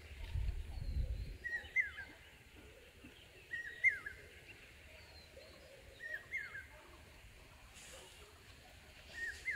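A bird calling again and again, each call a short burst of quick falling notes, repeated four times every two to three seconds. A low rumble runs through the first second or so.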